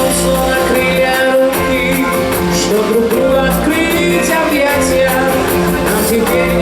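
Loud, upbeat show music with held notes over a steady beat.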